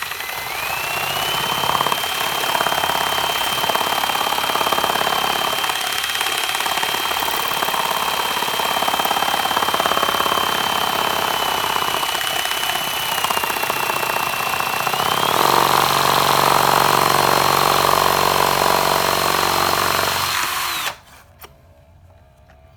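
Electric drill spinning the crankshaft of a LEGO chainsaw, a steady motor whine over the clatter of the plastic mechanism. The whine rises as it spins up, jumps higher about two-thirds of the way through as the drill speeds up, and cuts off abruptly near the end.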